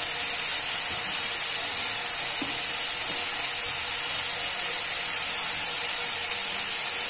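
Chopped tomatoes, onions and green chillies frying in hot mustard oil in a pan, sizzling with a steady hiss.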